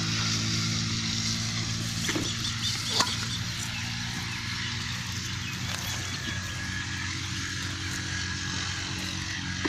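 Steady drone of an engine running at a constant speed. Two short knocks come about two and three seconds in.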